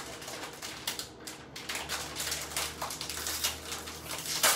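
Plastic packaging crinkling and rustling as it is torn open by hand, in a run of short crackles, with one sharper, louder rip near the end.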